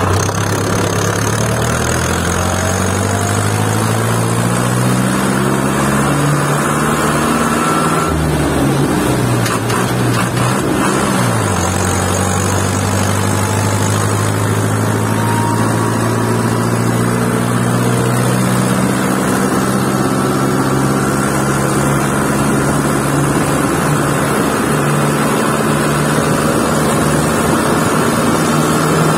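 Steyr tractor's diesel engine running at full throttle under load, pulling a loaded trailer; the engine note climbs slowly, dips for a few seconds about eight seconds in, then picks up again lower and climbs steadily.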